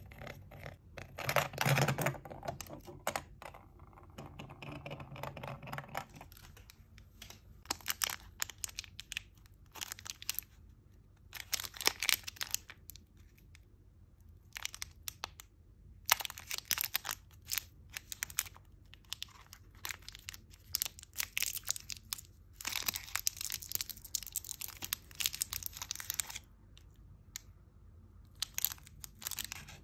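Plastic candy wrapper being crinkled and twisted open in many short rustles. Near the start, a plastic toy capsule ball spins on a tabletop.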